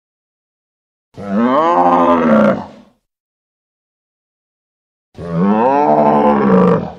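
Two roars of the 1998 TriStar Godzilla sound effect, each about two seconds long, rising and then falling in pitch, separated by silence.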